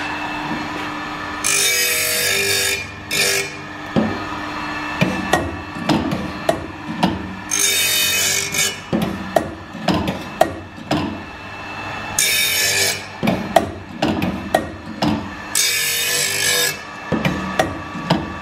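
Automatic OSW-5M circular-saw sharpening machine grinding a carbide-tipped blade with a diamond wheel, flank face first. Each tooth gets a hissing grind about a second long, about every four seconds, and sharp clicks and knocks come between the grinds as the mechanism moves the blade on to the next tooth. The teeth are damaged and heavily worn.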